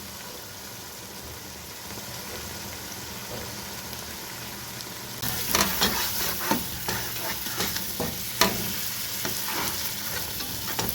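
Tomatoes frying with ginger and garlic, sizzling steadily in a pot; about five seconds in, a spoon starts stirring, scraping and clicking against the pot over the sizzle.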